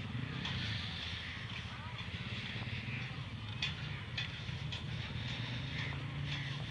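Distant GMCU-15 diesel-electric locomotive's engine, a low steady rumble of a train approaching the crossing, with a few faint clicks.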